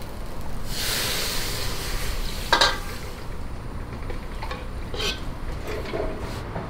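Stock poured into a hot steel wok, sizzling loudly as it hits the pan about a second in and dying down within a couple of seconds. A metal ladle clinks sharply against the wok partway through, then taps and scrapes a few more times as the stock is stirred.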